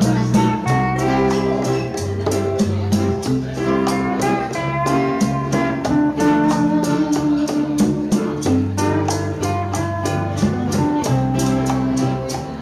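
Live small band playing a Hawaiian-style song: lap steel guitar melody over strummed guitar, with maracas and congas keeping a steady beat.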